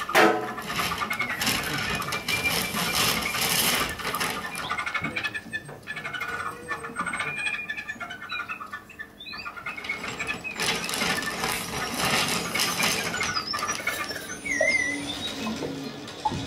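Free-improvised noise music, mostly electronic: a sharp crack at the start, then swells of hissing noise with scattered squeals, clicks and short chirping glides. It thins out in the middle, then a second swell builds.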